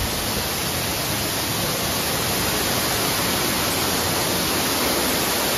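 Waterfall inside a cave pouring down steadily: a constant, even rush of falling water.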